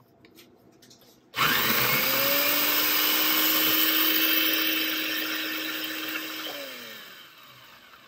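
The ARCO 2-in-1 coffee grinder's electric motor base switched on. It starts suddenly about a second and a half in, spins up quickly and runs with a loud, steady whir. About six and a half seconds in it is switched off, and the pitch falls as it winds down and fades.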